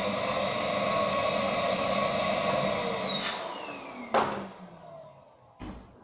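Karcher T7/1 vacuum cleaner running with a steady high whine, then switched off about two and a half seconds in and winding down with falling pitch. A sharp click and then a louder knock, the loudest sound, come as it spins down, and a softer thump near the end.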